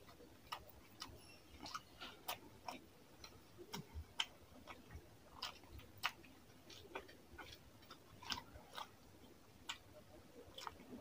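Close-miked chewing of rice and fish curry eaten by hand: faint, sharp mouth clicks and smacks coming irregularly, a few each second.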